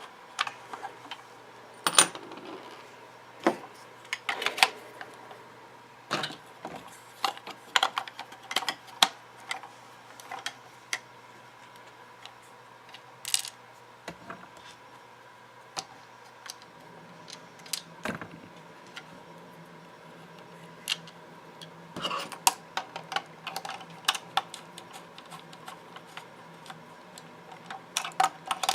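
Hard plastic parts of a Buzz Lightyear action figure being handled and fitted together: scattered, irregular clicks, taps and light rattles, with a faint steady hum beneath.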